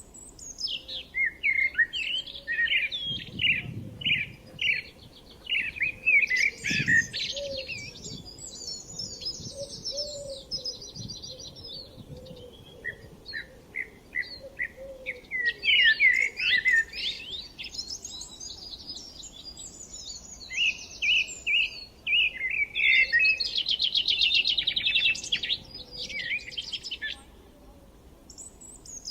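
Several songbirds singing and chirping: runs of quick high chirps and fast trills in phrases, with short pauses between them.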